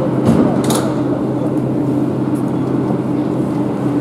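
Madrid Metro series 8400 train standing at a platform, its onboard equipment giving a steady hum. There is a short hiss about a second in.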